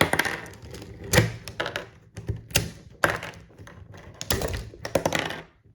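Plastic Rubik's Cube pieces being pried out and handled, a run of sharp clicks and knocks as the cube is taken apart.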